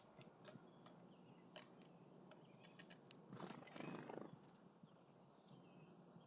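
Near silence with faint scattered ticks and a brief soft rustle about three and a half seconds in.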